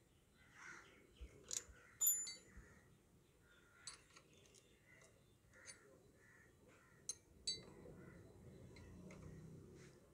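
Combination spanner clicking and clinking against the bolt and nut of a Bajaj Dominar 400's gear-shift linkage as they are tightened to take up play in the shifter: a few scattered sharp metallic clicks, the loudest about two seconds in.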